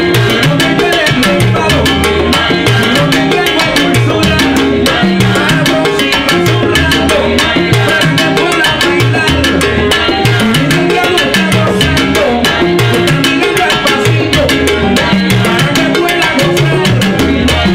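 Live salsa orchestra playing at a steady dance tempo: bongos, timbales and congas driving the rhythm under piano, bass and horns.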